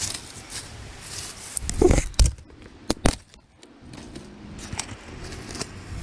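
Dry leaves and twigs rustling as a hand works in a leafy rock crevice, mixed with knocks from handling the handheld camera: a cluster of sharp knocks about two seconds in and two more about three seconds in. After a short lull, steady rustle and footsteps on a leafy dirt trail.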